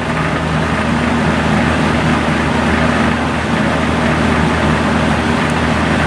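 A 12-inch Penncrest two-speed box fan with a 1.4 amp General Electric motor running steadily: an even motor hum under the rush of air from the spinning blade.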